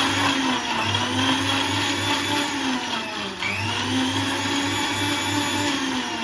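Electric mixer grinder running at full speed, blending curd and water into buttermilk. Its whine dips in pitch and recovers twice, and right at the end the motor is switched off and starts to wind down.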